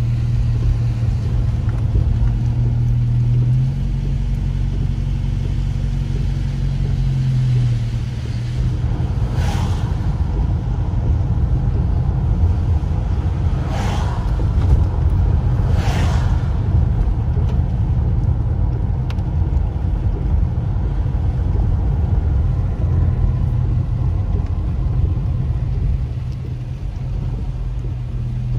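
Steady low rumble of a car driving on a wet road, heard from inside the cabin. A steady hum fades out about eight seconds in, and three brief hisses come near the middle.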